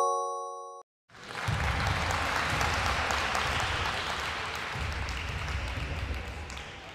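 A short rising electronic chime ends just under a second in. After a moment's pause, a recorded crowd applauds and fades away near the end.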